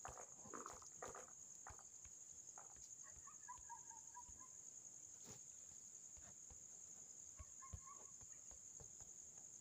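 Near silence: a faint, steady high-pitched insect chorus, with a few soft clicks and two brief, faint warbling calls.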